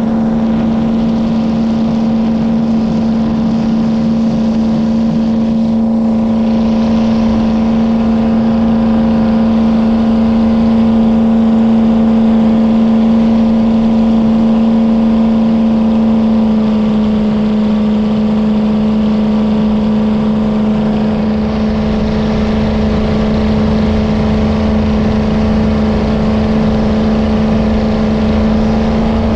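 Jet boat engine running steadily with a loud, even hum that dips slightly in pitch about halfway through.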